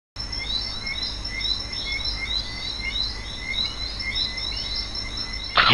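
Rhythmic high-pitched animal chirping, about three calls a second, over a steady low hum, with a short loud burst just before the end.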